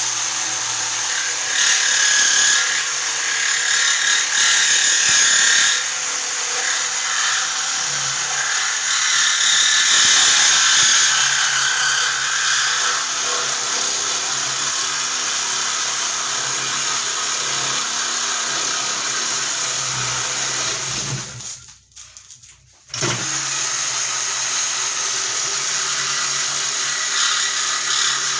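Reciprocating saw cutting through a compressor's metal shell, running steadily with louder, high-pitched squealing stretches as the blade bites in the first dozen seconds. It stops for a second or two about three-quarters through, then starts cutting again.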